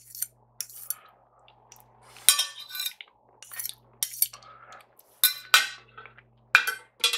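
Metal knife and fork scraping and clinking against a ceramic plate as the last of the sauce is scraped up, in a string of short, sharp strokes. Near the end the cutlery is laid down on the plate with a few louder clinks.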